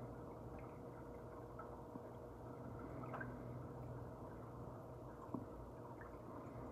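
Reef aquarium water circulation, faint and steady: pumps humming under water trickling, with scattered small ticks and drips.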